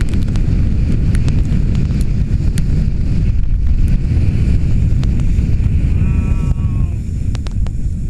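Wind buffeting the microphone of a handheld action camera as a snowboarder rides downhill, a steady low rush with scattered clicks. A brief high, voice-like call sounds about six seconds in.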